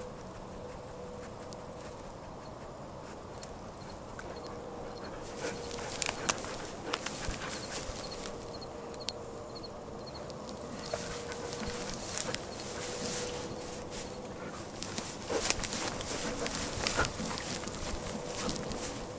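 Dry grass, stems and twigs scraping and crackling against a harness-mounted camera as a German shepherd pushes through brush, in irregular bursts that are loudest about six seconds in and again near the end. A steady faint hum runs underneath.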